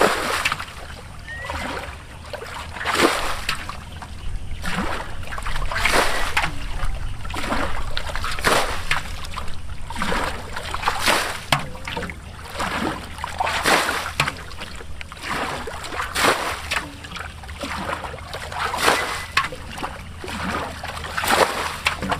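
Muddy ditch water being bailed with a large metal basin: scooped and flung out over and over, each throw a splash and slosh, roughly one a second.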